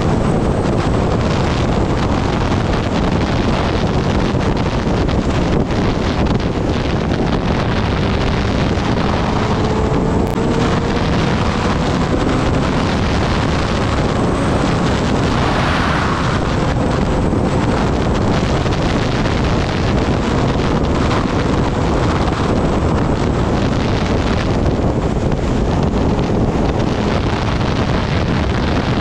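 Heavy wind rush on the microphone at riding speed on a Kawasaki Ninja ZX-10R, with the bike's inline-four engine faintly beneath it, its note rising slowly in stretches as it pulls.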